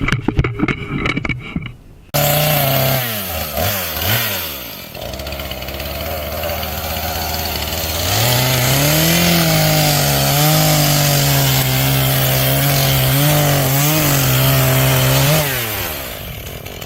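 Chainsaw engine starting abruptly about two seconds in and revving up and down. It then runs at high, steady revs while sawing into wood for about seven seconds, and the revs drop away near the end.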